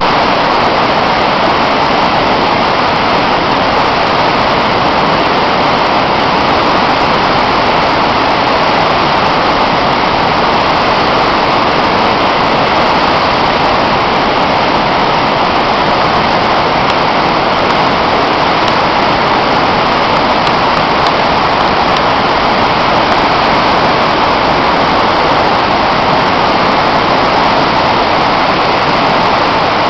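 Whitewater rushing over a rock ledge in a river at high water, a loud, steady wash that holds even throughout.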